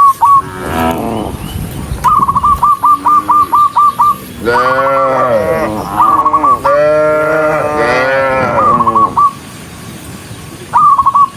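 Cattle mooing, with several long drawn-out calls, some overlapping. Between and over them come runs of short, high, whistle-like notes, about four a second.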